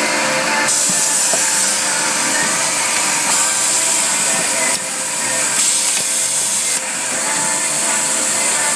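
Vinyl record-pressing machine at work: steady machine noise with hissing compressed air that cuts in and out abruptly a few times as the pneumatic take-off arm lifts a freshly pressed record and swings it off the press.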